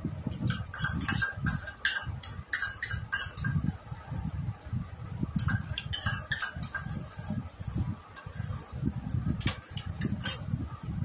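Close-miked eating: clusters of wet clicks and smacks from chewing, with short low thumps in between.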